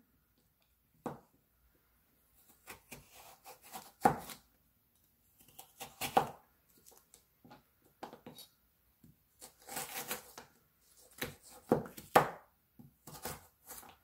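Kitchen knife slicing a raw carrot lengthwise into thick strips on a cutting board: irregular crisp cuts and knocks of the blade on the board, the loudest about four, six and twelve seconds in.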